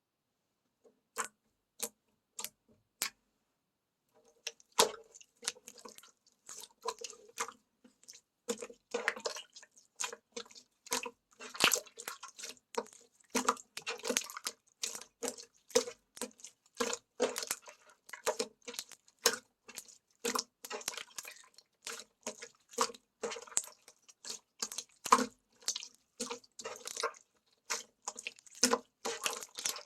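Slime being squeezed and poked by hand, giving irregular wet clicks and squelching pops. A few single clicks come first, and they turn dense about four seconds in.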